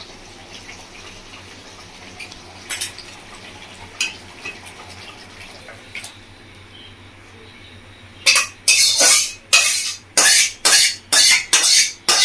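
Metal spatula scraping a steel kadai in a run of loud, quick strokes, about two a second, as curry is scraped out into a steel bowl. Before that, only a few light metal clinks.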